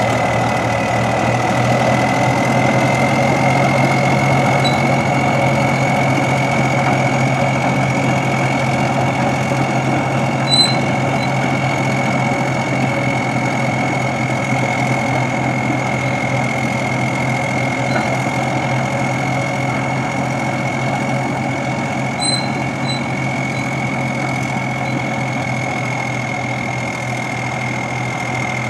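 Caterpillar D9 crawler bulldozer's diesel engine running steadily as the dozer drives along, with a steady high-pitched whine over the engine.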